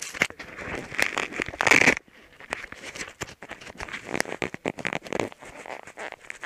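Close handling noise on the camera: fingers rubbing, scraping and knocking on its body, heard as irregular crackles and clicks, loudest about two seconds in.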